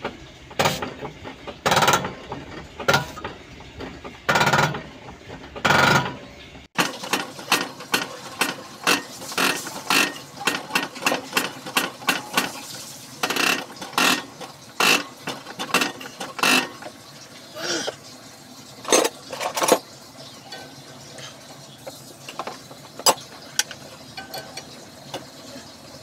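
Diesel injector nozzle from a Komatsu 3D84 engine popping on a hand-lever injector tester: each lever stroke brings a short, loud hiss of spray, about one a second at first. Further on the strokes come quicker, with many sharp clicks between fewer spray bursts, as the nozzle's spray and opening pressure are checked.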